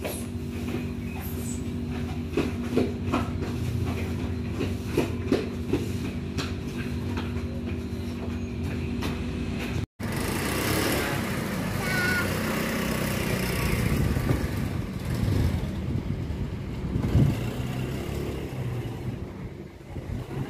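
Motor scooter engine running with a steady hum. It cuts out for an instant about halfway through and comes back rougher and noisier.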